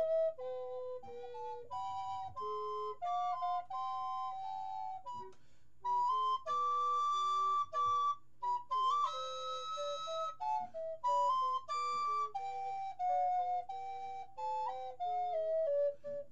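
Background music: a solo flute playing a melody one note at a time, with a short break about five seconds in.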